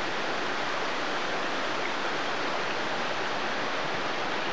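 Steady, even rushing noise with no breaks or changes in level.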